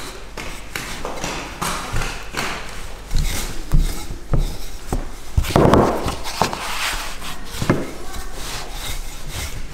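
Wooden rolling pin rolling out a round of dough on a floured wooden board: rubbing and scraping strokes with a few sharp knocks of the pin against the board.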